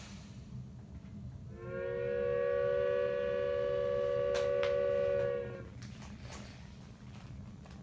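Steam locomotive whistle sounding one long chord of several tones for about four seconds, sagging slightly in pitch as it dies away, over a low steady hum from the model railway.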